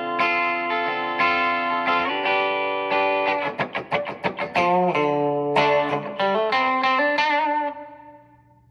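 Clean electric guitar played through a Donner Verb Square Evolution+ reverb pedal on its plate setting. Sustained chords, a stretch of quick strumming in the middle, then single notes that ring and fade out near the end. The plate reverb is pretty subtle.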